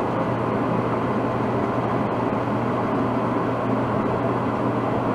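Hitachi DE-N35FY electric clothes dryer running steadily after its belt has been replaced and it has been cleaned and oiled: an even whir of drum and fan over a low hum.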